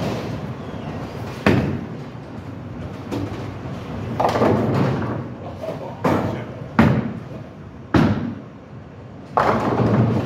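Bowling alley: sharp knocks of bowling balls striking the lane, and two longer clattering crashes of pins being hit, one about four seconds in and one near the end.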